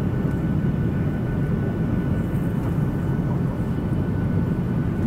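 Steady cabin noise of a Boeing 737 airliner in cruise flight, heard from a window seat: a deep, even rumble of jet engines and airflow with a faint, steady high tone above it.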